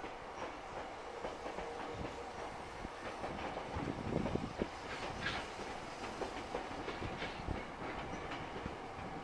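Meitetsu electric train running through the station, its wheels clacking over the rail joints, loudest about four seconds in.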